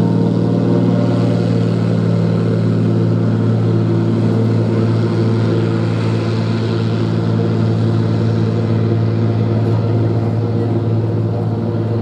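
de Havilland Canada DHC-2 Beaver floatplane's radial engine and propeller running steadily at full power on its take-off run across the water, getting slightly quieter near the end as it moves away.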